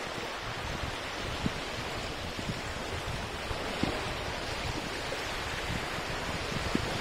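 Small, calm lake waves breaking and washing onto a sandy shore: a steady rush of surf with a few soft low thumps.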